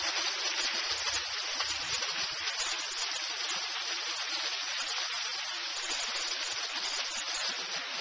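Water of a boulder waterfall splashing down over the rocks: a steady, even rushing hiss.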